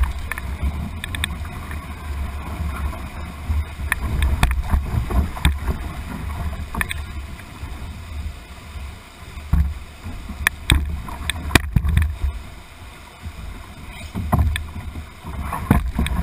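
Whitewater rapids rushing past a canoe's bow, with a heavy low rumble and several sharp knocks, the loudest between about ten and twelve seconds in.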